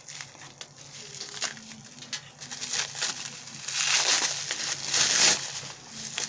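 Plastic bubble wrap crinkling and crackling as hands peel it off a small box, with scattered sharp crackles at first and a louder, denser stretch of crinkling from about four to five seconds in.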